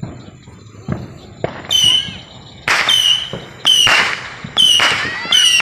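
Mad Ox Saturn missile battery firing: after a few faint pops, small whistling rockets launch about once a second from roughly two seconds in. Each shot is a sudden burst followed by a shrill whistle.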